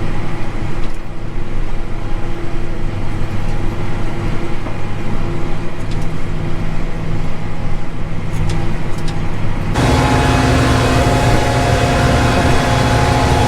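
Combine harvester running while harvesting corn: a steady engine and machinery hum with a few faint clicks. About ten seconds in, the sound jumps abruptly to a louder, fuller hum at a different pitch.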